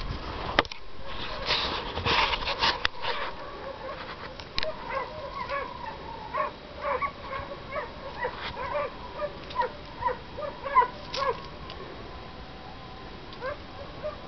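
Hunting dog yelping: a run of short, high yelps, two or three a second, from about four seconds in until near the end. A couple of seconds of rustling and knocks come first.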